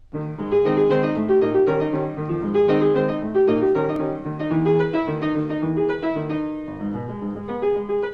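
Background music: a lively piano melody with quick, detached notes.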